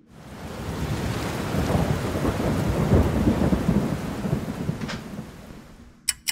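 A roll of thunder with rain: a deep rumble that swells to its loudest midway and then fades away. A couple of sharp clicks come at the very end.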